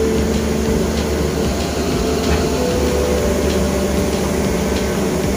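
Long-reach excavator's diesel engine running steadily, heard from inside the operator's cab, as the arm swings the bucket. A few steady whining tones come and go over the engine.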